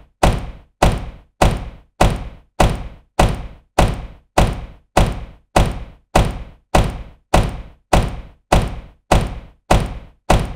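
Supercar door shutting with a solid thunk, repeated as an evenly spaced loop a little under twice a second. Each is a sharp thud that dies away within half a second.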